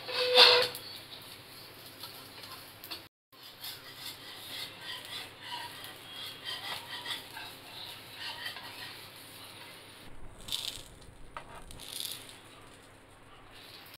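A steel spatula scraping and knocking on a hot dosa tawa as a crisp masala dosa is lifted and folded, with a sharp ringing clank right at the start and more scrapes near the end. Light crackling from the hot griddle runs in between.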